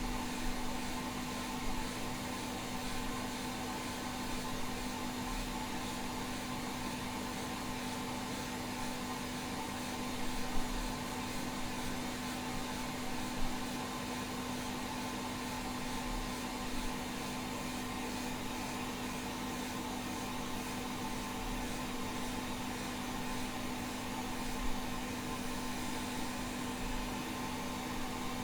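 Hot air rework station blowing steadily at low heat and 60% airflow: an even rush of air with a steady hum, with a few light bumps. It is heating the underside of a hard drive circuit board to melt the solder on a large SATA connector.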